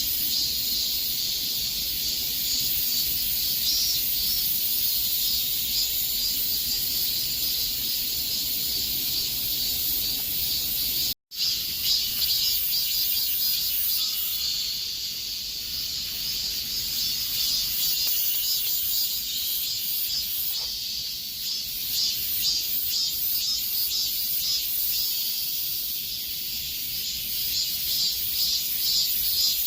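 A chorus of cicadas buzzing: a dense, high, steady drone with a fast pulsing texture. The sound cuts out completely for an instant about eleven seconds in.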